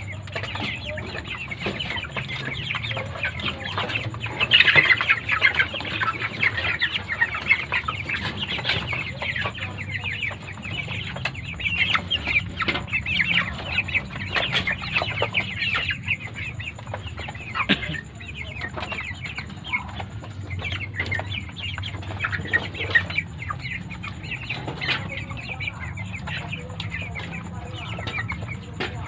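A crowded flock of broiler chickens clucking and calling continuously, with many short clicks and taps among the calls and a steady low hum underneath. The calling is loudest about four to six seconds in.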